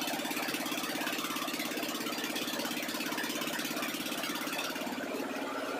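Lathe running steadily with an 8 mm keyway milling cutter spinning in its chuck, cutting a keyway into a shaft clamped in the tool post. A constant machine hum over a continuous hiss.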